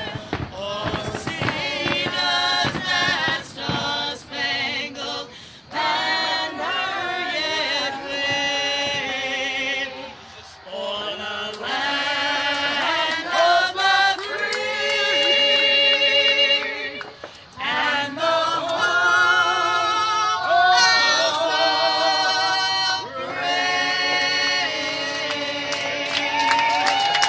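A choir singing, with sustained notes that waver in vibrato, and a few firework bangs in the first second.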